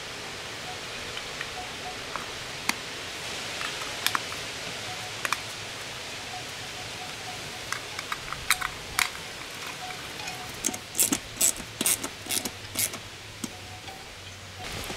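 Light clicks and taps of small metal parts being handled as an aluminium cover is fitted around the crankshaft of a Briggs & Stratton engine. A quicker run of clicks comes about two-thirds of the way in, over a steady background hiss.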